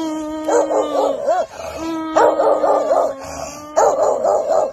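Caged dogs howling and barking, among them a bully-breed dog: two long, steady howls, with short barks and yelps breaking over them, loudest about two seconds in and near the end.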